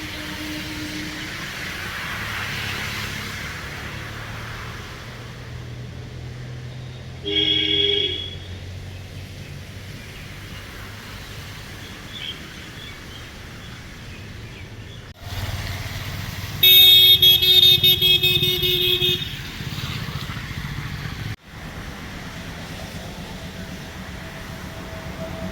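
Road traffic with engines running and vehicle horns honking: a short honk about seven seconds in and a longer, loud honk around seventeen seconds in.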